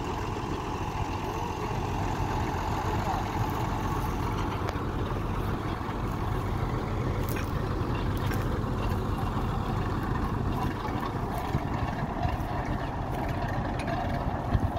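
Engine of a truck-mounted water-well boring rig running steadily while it bores a tubewell, with a few light clicks.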